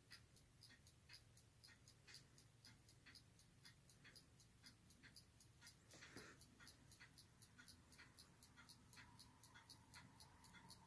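Near silence: faint, even ticking about twice a second, with a brief rustle about six seconds in.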